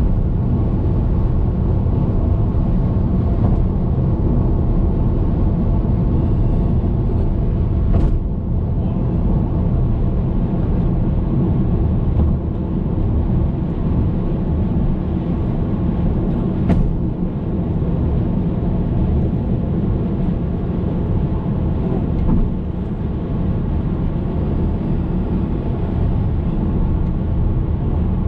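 Hyundai Veloster Turbo driving, a steady low rumble of road and engine noise, with two short sharp clicks about eight and seventeen seconds in.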